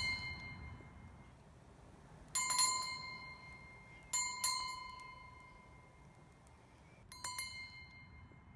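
A small bell struck three times, each a quick double strike whose clear ringing tone dies away over a couple of seconds, with the ring of an earlier strike fading at the start.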